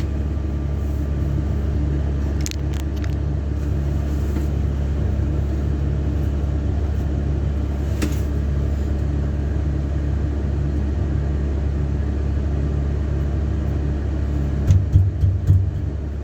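Vehicle engine running with a steady low drone, with a few thumps about fifteen seconds in.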